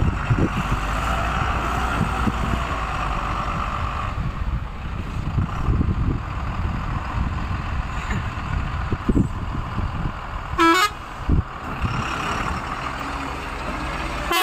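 Truck engine running while under way, a steady low drone with irregular knocks, and a short horn toot about eleven seconds in.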